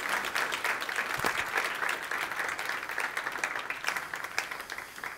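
Audience applauding, the clapping thinning and fading away near the end.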